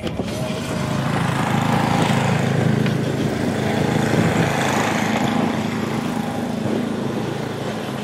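A motor engine running steadily, with a rushing noise over it that swells about a second in and eases off slightly near the end.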